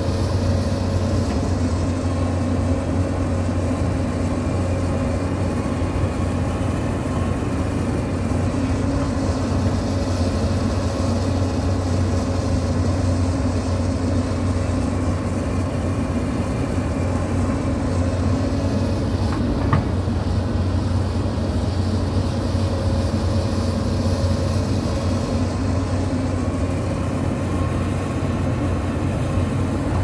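Hyundai 220-series crawler excavator's diesel engine running steadily under work, heard close up, with one sharp click about twenty seconds in.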